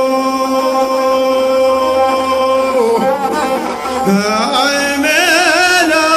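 Albanian folk singing: a solo voice holds one long note, then breaks into ornamented gliding turns and ends on a fast wavering vibrato.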